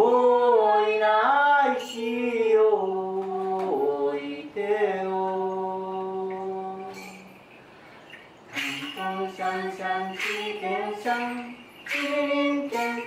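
Unaccompanied singing: long held notes that bend in pitch for several seconds, then after a short pause shorter sung phrases, joined by a shaken jingling hand percussion instrument striking every second or two.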